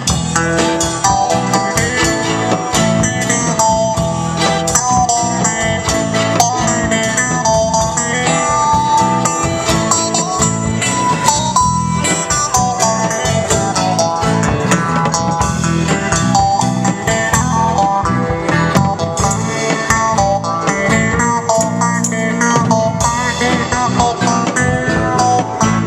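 Live band playing an instrumental passage, a plucked guitar carrying the melody over a steady rhythm accompaniment.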